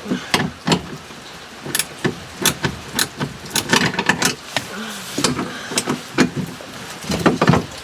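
Irregular clicks, knocks and light rattles of metal and plastic interior parts being worked loose by hand and with tools.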